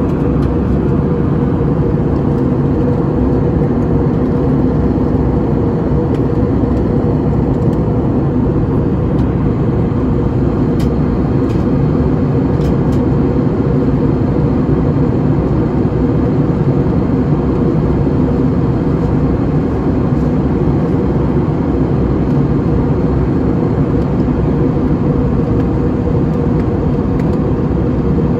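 Airliner cabin noise in flight: a loud, steady drone of engines and rushing air, heaviest in the low range, with a steady hum near 500 Hz.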